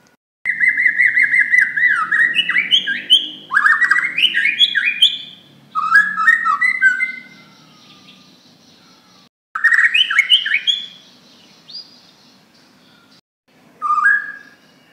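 White-rumped shama (Bornean murai batu) singing loudly: five bursts of quick whistled notes, several climbing in steps of pitch, with short pauses between them.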